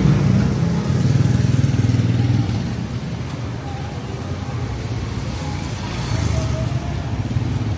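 Street traffic: motor vehicle engines running and passing close by, a steady low rumble that is loudest in the first couple of seconds and then eases off, with faint voices under it.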